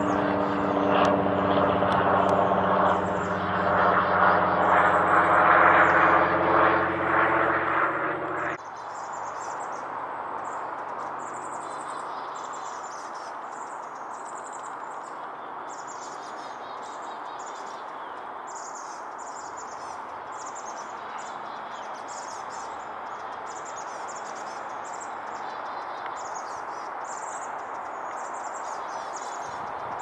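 A loud, steady engine drone with several fixed low pitches cuts off abruptly about eight and a half seconds in. After it comes a quieter steady background hum, with small birds giving repeated short, high chirps.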